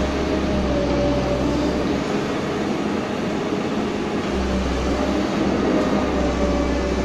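CAT 315D tracked excavator's diesel engine and hydraulics working steadily as it dumps a bucket into a tipper truck and swings back. A deep low rumble drops out about two seconds in and returns a couple of seconds later.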